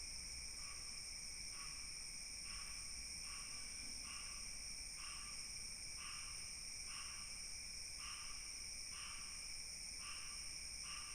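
A steady high-pitched chorus of night insects such as crickets, with a shorter chirp repeating roughly once a second over it.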